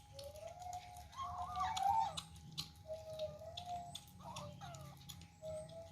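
Kittens mewing: about four thin, drawn-out mews, the first lasting about two seconds, with light clicks in between.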